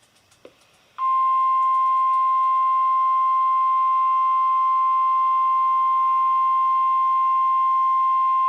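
NOAA Weather Radio's 1050 Hz warning alarm tone, played through a weather alert radio's speaker during the Required Weekly Test. It is a single steady, loud high-pitched tone that starts abruptly about a second in.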